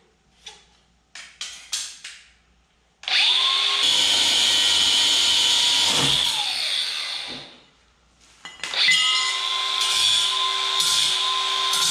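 Angle grinder cutting a steel bar: a few light knocks, then the grinder spins up with a rising whine about three seconds in, runs and cuts, winds down about six seconds in, and starts up again a second or so later to cut again.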